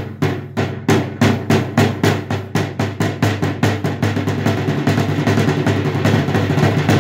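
14-inch snare drum with a coated Ambassador batter head and its snare wires switched off, struck with sticks: steady single strokes, about three a second, that speed up into a fast roll about four seconds in. The head rings on with a sustained tone between hits.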